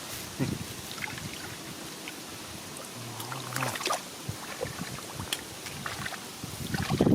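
Shallow water sloshing and splashing as hands work through a flooded rice field, with scattered small splashes and knocks.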